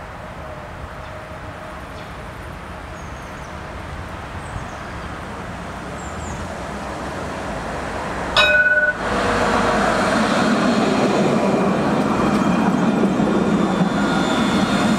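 An Alstom Citadis tram approaches and passes close by. Its running noise grows steadily, and a short, loud warning tone sounds about eight seconds in. The wheels and traction motors then run loud on the rails, with a faint whine, as it goes past.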